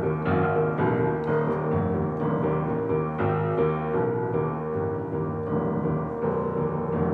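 Background music led by piano, with notes struck about every half second to second.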